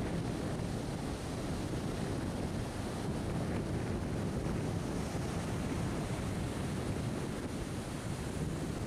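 Sea surf breaking and washing up on a beach, a steady rush of waves, with wind rumbling on the microphone.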